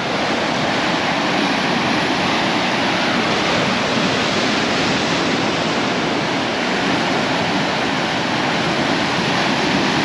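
Ocean surf: a steady, rushing wash of breaking waves.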